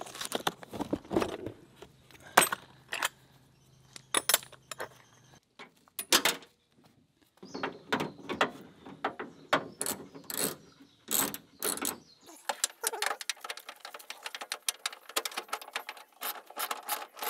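Metal clicking, clanking and rattling of a hand tool and the door latch parts inside the bare steel door shell of a 1998 Toyota Tacoma as the old door handle and latch assembly are worked loose. Irregular knocks at first, becoming a quick, dense run of clicks in the last few seconds.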